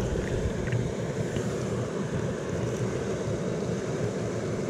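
Small rocky moorland stream running over stones close by, a steady low rushing of water, with a few faint ticks in the first second and a half.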